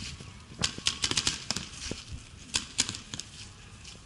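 Paintball markers firing: a quick string of sharp pops about half a second in, then a few single shots later on.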